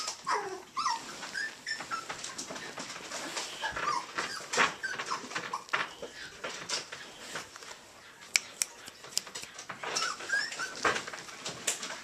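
Yorkshire terrier puppy making short, high-pitched whimpers and squeaks while play-biting a hand, in spurts near the start, midway and near the end, with scattered sharp clicks and rustling.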